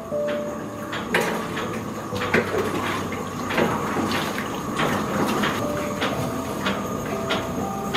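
Thick raw lacquer (urushi) sap pouring and sloshing into a vessel, with irregular splashes and plops.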